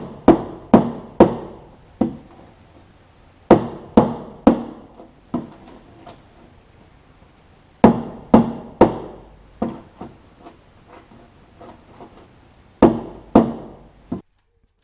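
Hammer blows on the steel rear fender of a 1946 Chevrolet as a dent and crease are worked out. The strikes come in bursts of three to five with pauses between, and each one rings briefly.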